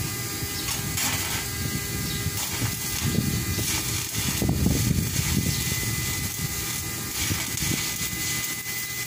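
Stick welding arc crackling and hissing steadily, with a low rumble underneath.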